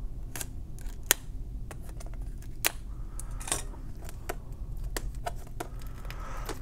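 Clear plastic wrapping on a DVD box set handled and picked at with the fingers: scattered sharp clicks and crackles at uneven intervals, over a low steady hum.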